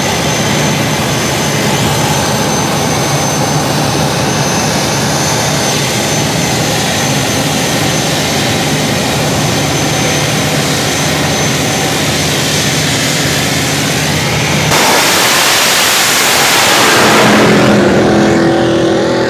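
Jet dragster's turbine engine running with a steady whine and rush. About fifteen seconds in, the sound turns suddenly to a louder, brighter rush of noise that swells near the end.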